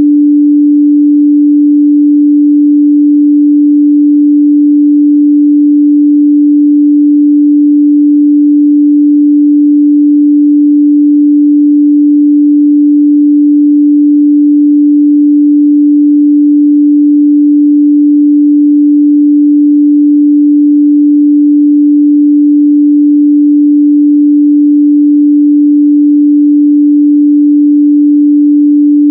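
A steady 293 Hz sine-wave test tone: one pure, unbroken pitch held at a constant level.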